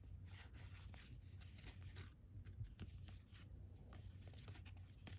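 Faint rustling and light ticks of a pack of trading cards being opened and the cards handled, over a low steady hum.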